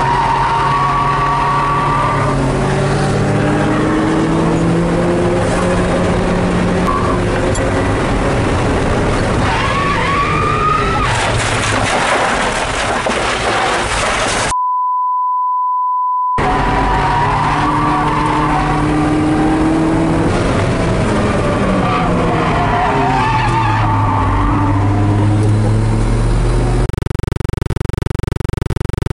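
Mazda Miata drift car's engine heard from inside the cabin, revving up and down hard as it is driven fast round a track. About halfway through, the engine drops out for about two seconds under a steady high bleep tone.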